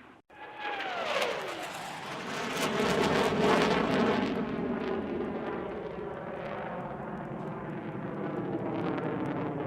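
Airplane engine: after a brief dropout at the start, a tone falls sharply in pitch about a second in, then a loud steady engine drone with several held tones swells up, loudest around three to four seconds in, and carries on steadily.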